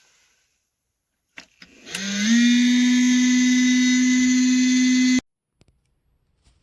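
Two light clicks, then a loud steady electric hum with many overtones that rises briefly in pitch as it starts, like a small motor spinning up, and cuts off suddenly about three seconds later.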